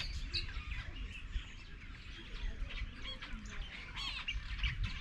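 Wild birds chirping and calling, many short high chirps and trills throughout, over a steady low rumble.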